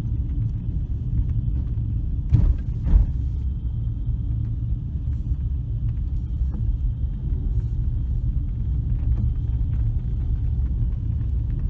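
Steady low rumble of a car's engine and road noise inside the cabin of a slowly moving car, with two sharp thumps about two seconds in, half a second apart.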